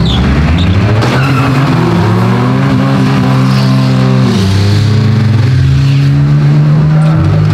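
Demolition drag race car's engine accelerating hard under full throttle, its pitch climbing steadily and dropping sharply twice, about four and seven seconds in, before climbing again.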